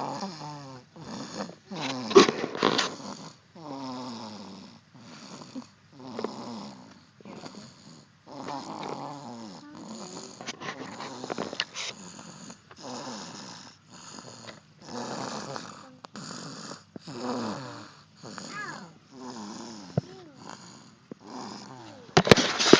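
Snoring, one rasping, pitched snore about every second, many of them falling in pitch, loudest around two seconds in.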